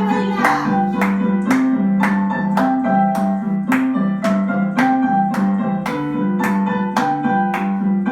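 Keyboard playing the instrumental accompaniment of a children's greeting song: chords and a melody over a steady beat of about two strokes a second.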